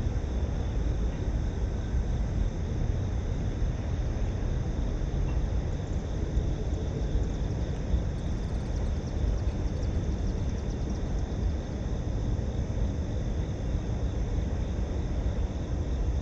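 Steady low rumbling noise outdoors, unbroken, with no distinct events.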